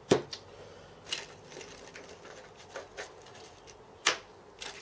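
Small metal parts, among them a homemade fly cutter, handled and set down on a workbench: a scatter of sharp clinks and knocks, the loudest right at the start and another about four seconds in.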